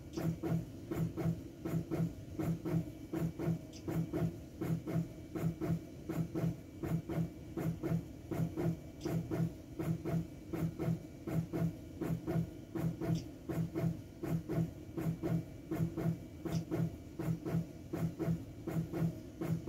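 Teleflex Arrow intra-aortic balloon pump running, its pneumatic drive pulsing in a steady rhythm a little faster than once a second. Each cycle is a quick pair of pulses and clicks as the helium shuttles in and out to inflate and deflate the balloon.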